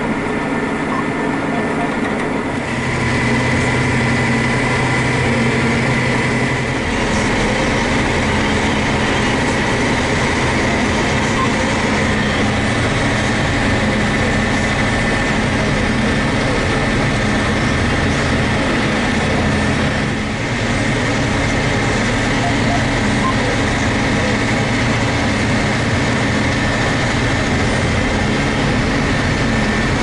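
John Deere tractor's diesel engine heard from inside the cab while driving: a steady drone with a high whine, getting louder about two and a half seconds in.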